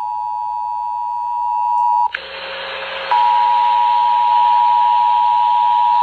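EAS attention signal: a steady, loud alert tone near 1 kHz coming through a radio receiver. About two seconds in it cuts out into roughly a second of static hiss, then the tone returns and holds.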